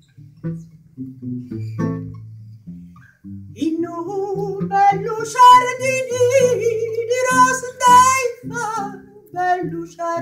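Nylon-string classical guitar playing a plucked folk accompaniment. About three and a half seconds in, a woman's voice enters, singing long, high notes with strong vibrato over it.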